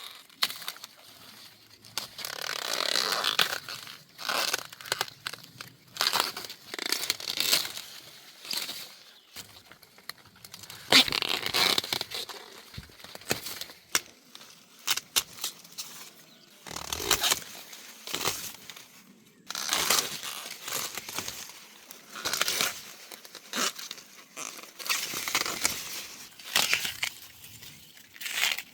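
Corn stalks, leaves and husks rustling and tearing in irregular bursts as ears of sweet corn are harvested from the plants.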